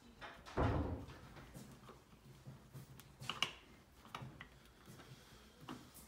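Pieces of a plywood kit being handled on a wooden workbench: a dull knock a little over half a second in, then scattered light clicks and taps.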